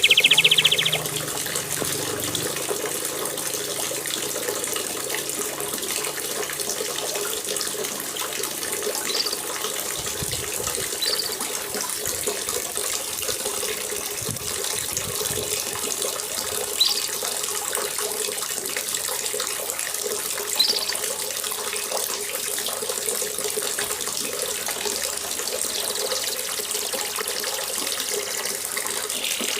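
Steady hiss of rain, played from a recording. A canary's trill ends about a second in, and a few brief, faint chirps come through later.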